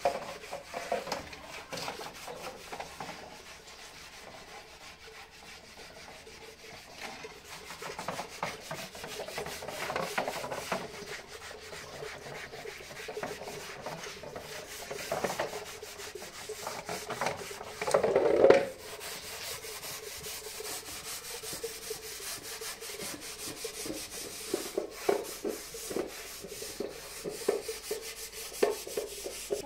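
Irregular rubbing and scraping strokes, with one louder, longer scrape about eighteen seconds in.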